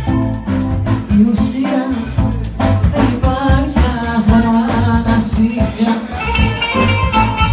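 Live amplified Greek taverna music: a woman singing into a microphone over plucked-string accompaniment, bass and a steady beat.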